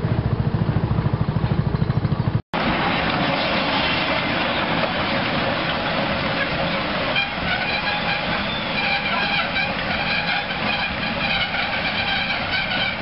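An engine running with a fast, even beat, cut off suddenly about two and a half seconds in. Then comes a steady hiss of steam from a small saddle-tank steam locomotive standing by, with several higher wavering tones joining about seven seconds in.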